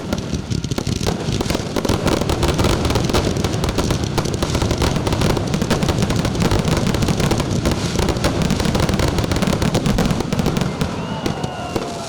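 Aerial fireworks going off in a dense, rapid barrage of bangs and crackles that thickens about two seconds in and eases off near the end.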